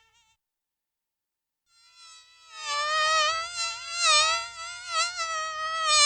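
A flying insect's buzzing wing whine, high and wavering in pitch and loudness as if circling. One buzz cuts off just after the start; after about a second and a half of silence another fades in and grows loud.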